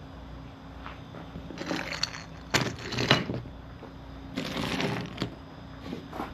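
3D-printed plastic figures being handled: three short bursts of rustling and clattering plastic over a faint steady hum.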